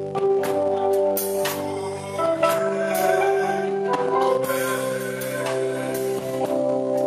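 Instrumental worship music: held chords over a steady beat of drum and cymbal strikes, about two a second.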